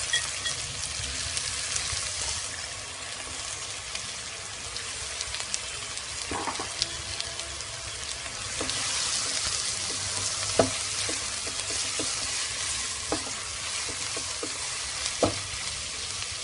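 Thinly sliced onions sizzling in hot oil in a frying pan, a steady hiss as they are stirred with a silicone spatula, with a few short knocks of the spatula against the pan.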